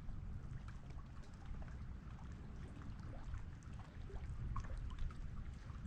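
Faint water lapping and trickling, with scattered small splashes and a steady low rumble of wind on the microphone.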